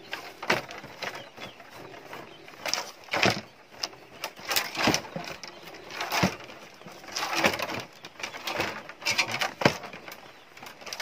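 Split bamboo strips rustling, scraping and creaking in irregular bursts as they are bent over and woven into a basket's rim.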